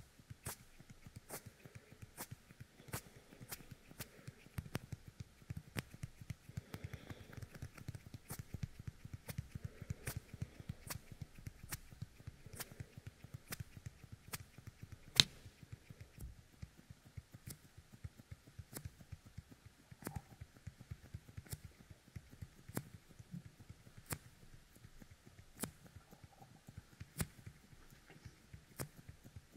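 Fingertips coated with the sticky 'medicine' of the Yokai Kemuri toy, pressed together and pulled apart right by the ear of a dummy-head microphone. It gives a tacky crackling with sharp little clicks about twice a second, one much louder than the rest about halfway through.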